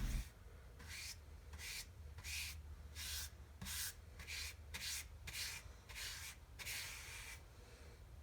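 Wood stain being rubbed onto a wooden board in short, faint back-and-forth strokes, about two a second.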